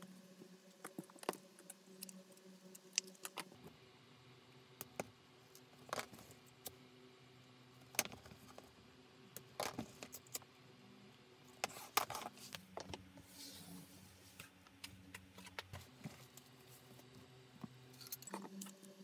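Scattered small metallic clicks and clinks as a strap's metal fitting and a sewing needle are handled during hand-stitching on a cutting mat, over a low steady hum.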